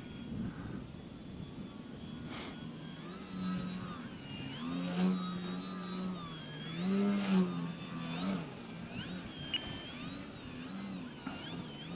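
Electric motor and propeller of a Twisted Hobbys 32-inch MXS-C foam aerobatic RC plane whining in flight. Its pitch rises and falls as the throttle changes, and it is loudest in two swells around the middle. A faint steady high tone runs underneath.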